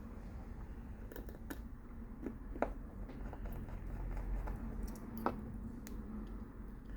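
Scattered small sharp clicks and light ticks of small screws and a Phillips screwdriver being handled and driven into a Samsung Galaxy S8 Plus's frame, over a low steady hum.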